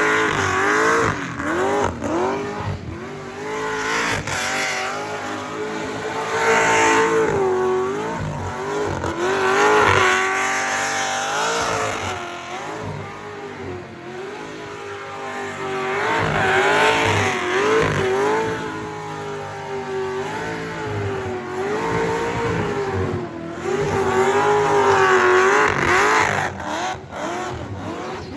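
Supercharged VF Holden Commodore doing a burnout. The engine is held at high revs, surging and dropping again and again, while the rear tyres spin and screech on the bitumen.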